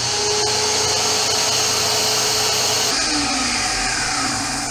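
Corded circular saw running at full speed and cutting across a wooden board, a loud steady motor whine over the blade's cutting noise; the sound changes about three seconds in.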